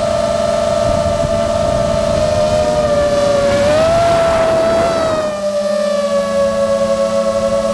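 FPV racing drone's brushless motors whining in flight, several steady tones together. About halfway through the pitch climbs with a rush of air noise as the throttle goes up, then it drops back to a lower, steadier whine.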